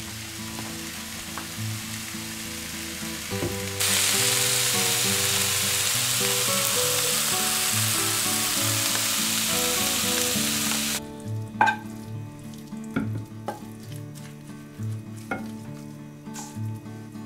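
Sliced onion, mushrooms and zucchini sizzling in a frying pan, much louder from about four seconds in, until the sizzle cuts off abruptly about eleven seconds in. After that come scattered clicks and knocks of a spatula against the pan and a glass baking dish as the vegetables are scraped out. Soft background music plays underneath.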